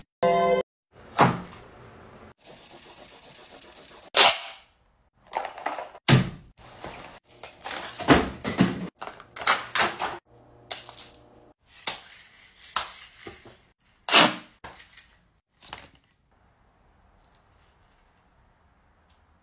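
A series of sharp knocks and bangs at irregular intervals with short quiet gaps between them, dying away to near silence for the last few seconds.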